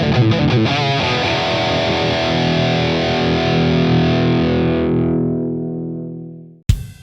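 Background music: distorted electric guitar strumming, then a long held chord that rings and fades out, with drum hits starting near the end.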